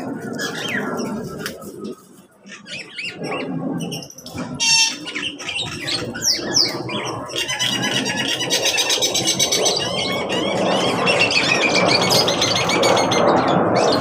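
Birds in a mixed aviary of cockatiels, parakeets and mynas chirping and squawking, with a sharp screech about five seconds in and a fast chittering trill in the second half. Under the calls, an aircraft's rumble builds up and grows louder toward the end.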